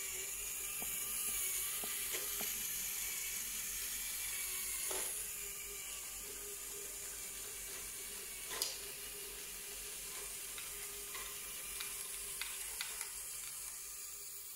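Lego Technic great ball contraption (GBC-19 Log Flume module) running: a steady motor hum under a constant hiss, with occasional sharp clicks of plastic balls knocking against the Lego parts. The loudest click comes about eight and a half seconds in, and a few more follow near the end.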